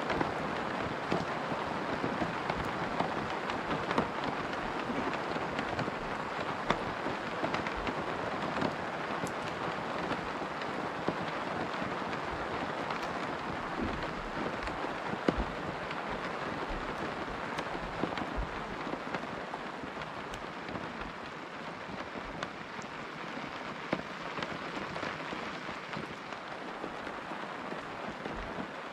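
Rain falling on a tent: a steady patter of drops on the fabric with scattered louder single drops, easing a little near the end.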